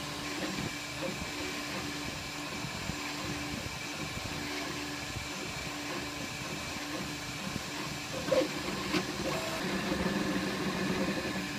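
Flashforge Dreamer 3D printer running slowly on its final layer: a steady fan hiss under humming stepper-motor tones, with a couple of clicks about eight seconds in and the motor tones growing louder near the end.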